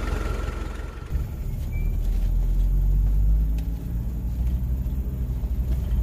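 Off-road vehicle engine running steadily at low revs, a deep drone. The sound changes abruptly about a second in.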